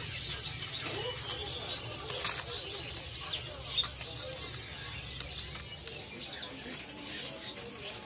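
Many caged songbirds giving scattered short high chirps and calls over a steady background murmur, with a slightly louder chirp about four seconds in.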